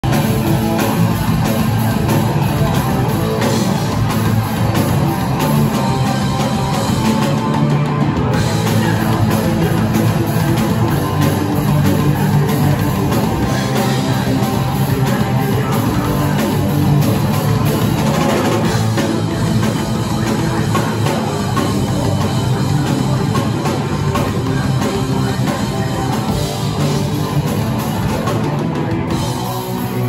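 Live rock band playing: electric guitars and bass guitar through amplifiers, with a drum kit.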